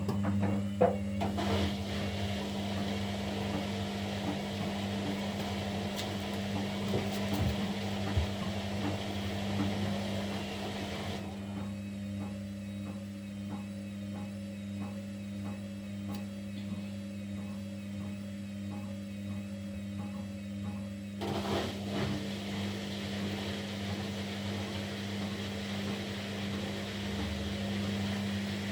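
Kunft washing machine running on a quick wash cycle, its motor giving a steady low hum with the drum's churning over it. The churning noise drops away for about ten seconds in the middle while the hum carries on.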